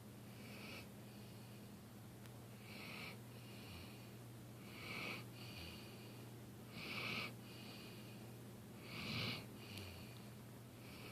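A sleeping dog snoring: a rough, wheezy snore about every two seconds, each breath a short noisy burst followed by a fainter tail, the last few louder than the first.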